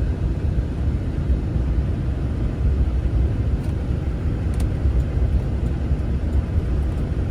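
Steady low road and engine rumble inside a moving vehicle's cabin, driving on a snowy highway.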